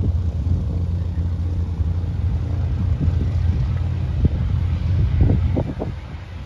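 Light single-engine propeller plane's engine droning steadily as it rolls along the runway, with a few brief louder sounds about five seconds in.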